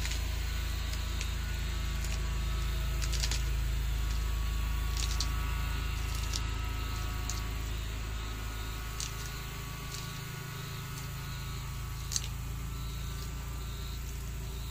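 Sulcata tortoise biting and chewing okra and romaine lettuce: scattered short, crisp crunches, the sharpest near the end, over a steady low rumble.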